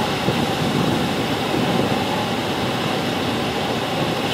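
Steady rush of the Moconá Falls and the churning river water close by, with a boat motor running underneath.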